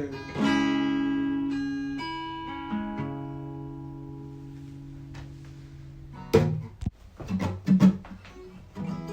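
Acoustic guitar chords strummed and left to ring, slowly fading over several seconds. Then, in the last few seconds, a handful of short knocks and rustles.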